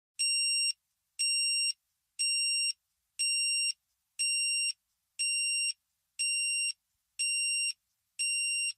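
Electronic timer alarm beeping: a high-pitched beep about half a second long, repeated once a second, nine times. It signals that the 30-minute countdown has run out.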